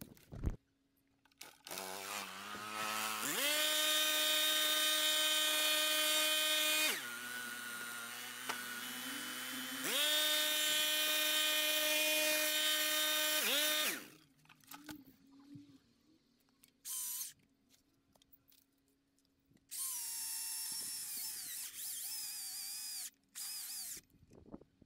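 Stihl MSA 220 battery chainsaw's electric motor whining up to speed and running steadily. It dips lower for a few seconds, speeds up again and winds down. It is followed by a short burst and another run at a lower pitch, with a sharp knock right at the start.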